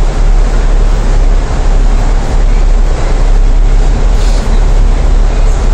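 Alexander Dennis Trident E500 double-decker bus's Cummins ISL8.9 diesel engine idling, heard from on board as a steady low rumble.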